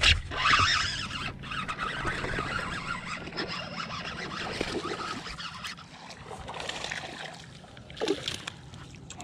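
Fishing reel spinning as a hollow frog lure is cast out and reeled back across the weeds, with a short burst of water commotion near the end as a bass takes it and is hooked.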